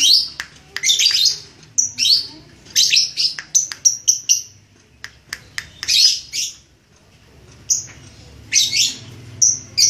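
Red-headed lovebird giving shrill, high chirps in rapid clusters, a lovebird practising its 'ngekek' chattering song. The clusters come one after another with a short pause about seven seconds in.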